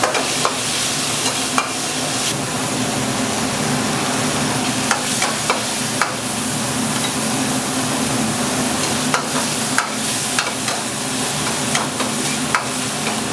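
Pad see ew stir-frying in a wok: a steady sizzle, with the metal spatula scraping and knocking against the pan at irregular moments throughout.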